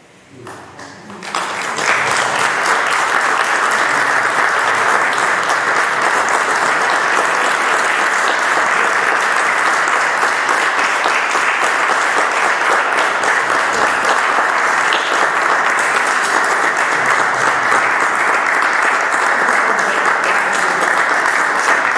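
Audience applauding, a dense, steady clapping that starts about a second in.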